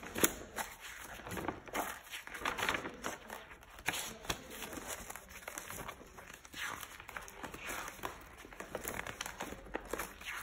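Pages of a spiral-bound sketchbook, stiff with glued-in printouts and collage, being turned by hand: irregular paper rustling and crinkling, with sharp flaps as each page falls over.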